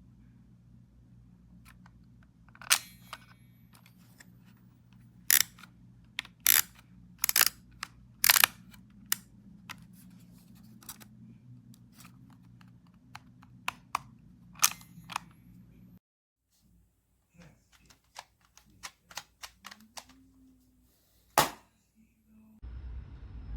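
Sharp plastic clicks from handling a Kodak Ektar H35 half-frame film camera: about eight loud clicks spread out, with smaller ticks between them. A steady low rumble comes in near the end.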